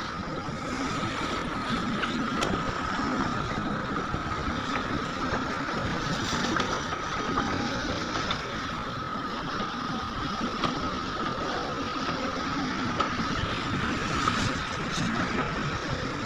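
Heavy earthmoving machinery running steadily, with a constant high whine over the engine noise and a few faint clicks.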